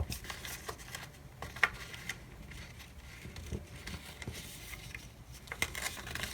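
Light rustling and scattered soft clicks of paper planner pages and washi tape being handled, with a few sharper ticks about a second and a half, three and a half, and five and a half seconds in.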